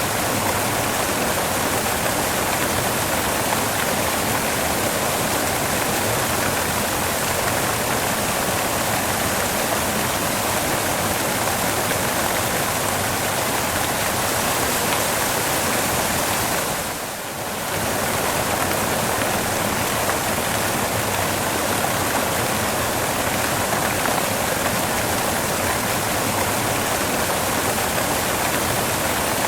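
Steady white noise: a constant, even hiss across the whole range, dipping briefly in level about seventeen seconds in.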